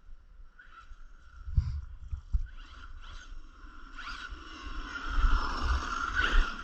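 Electric drive of a 1/5-scale 12S RC car (Hobbywing 560kv brushless motor) running, with a steady whine and low rumble; it gets louder with a short rising glide about four seconds in, as the car speeds up.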